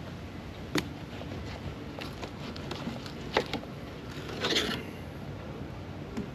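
Fillet knife working a fish fillet on a plastic cleaning board: two sharp knocks of the knife or fish on the board, and a short scrape a little past the middle as the blade runs along the board under the skin.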